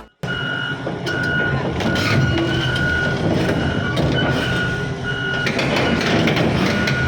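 Warning alarm on a heavy tracked excavator beeping over and over at one pitch as the machine moves, over the steady low running of its diesel engine.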